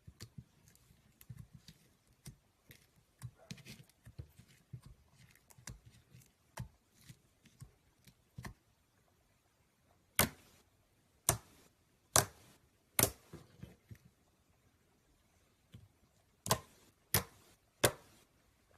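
Slime being squeezed and poked by hand, with small sticky crackles and pops for the first half. Then come loud sharp pops: four roughly a second apart in the middle, and three more near the end.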